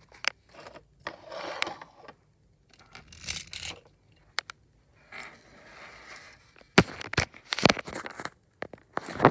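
LEGO pieces and their packaging being handled: scraping and rustling, with scattered sharp plastic clicks that come loudest in the second half.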